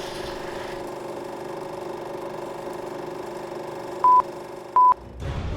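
A steady electronic hum made of several held tones, with two short, loud, high beeps at the same pitch about four seconds in, under a second apart.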